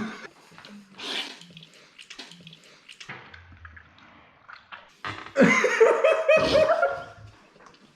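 Soft slurping and eating sounds of noodle soup, then about five seconds in a person bursts out laughing with a mouthful of soup, a loud, wet, spluttering laugh lasting about two seconds.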